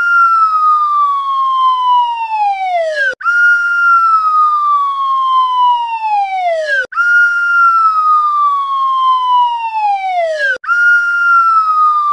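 A falling whistle sound effect, played over and over: a loud, clear whistling tone starts high and glides slowly down, dropping faster at the end. Each glide lasts about three and a half seconds, then breaks off, and the next starts straight away at the top.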